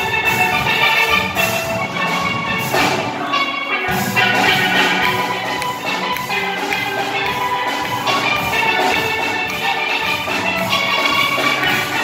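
Steel pan band playing live: many pans together ringing out a fast, rhythmic melody over low bass notes.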